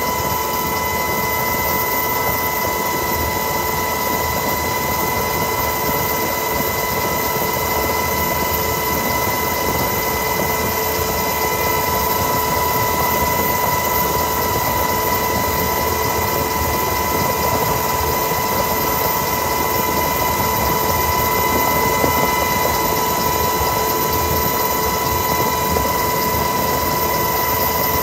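Helicopter in flight, heard from inside the cabin: engine and rotor noise running steadily, with a high whine held on one pitch.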